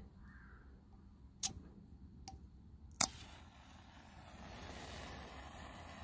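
A Zippo Typhoon windproof match struck once on its case's striker about three seconds in, a sharp scratch, then burning with a steady soft hiss. A couple of light handling clicks come before the strike.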